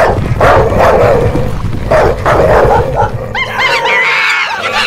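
Cartoon dog barking sound effects, a quick run of barks. From about three seconds in they give way to high monkey chattering and squealing calls that slide up and down in pitch.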